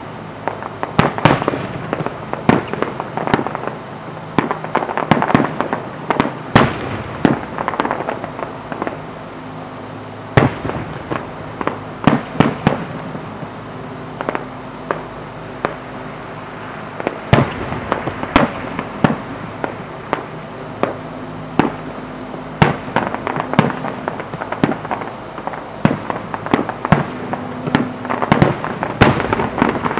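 Aerial fireworks display with many sharp bangs from bursting shells. A rapid volley comes in the first several seconds, the bangs are sparser in the middle, and they build into a dense barrage near the end.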